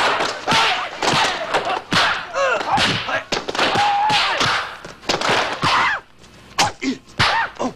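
Rapid string of punch and kick impact sound effects, thuds and slaps, mixed with sharp shouted martial-arts cries and grunts from the fighters. The blows come several to the second, with a short lull about six seconds in.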